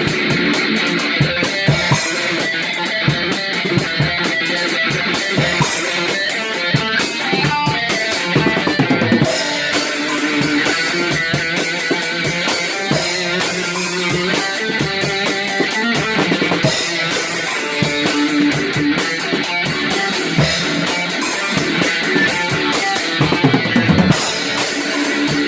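Music: guitar playing with drums, a rock-style song going on without a break.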